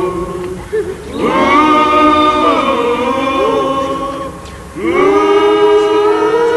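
A Tahitian group singing in chorus: two long held phrases of many voices together, each beginning with an upward slide in pitch, with a short break a little past the middle.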